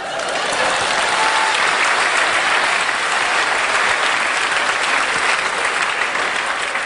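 Audience applauding, swelling in at the start, holding steady, then dying away near the end.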